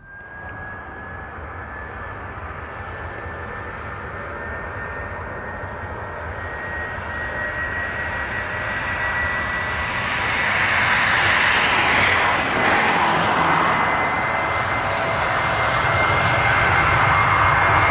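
Twin-engine jet airliner on its takeoff roll and lift-off: a high engine whine slowly rising in pitch over a rushing roar that grows steadily louder.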